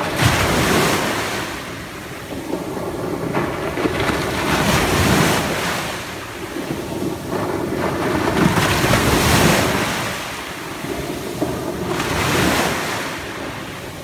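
Small ocean waves breaking close to shore on a sandy beach and washing up the sand, the surf swelling and fading in about four surges a few seconds apart.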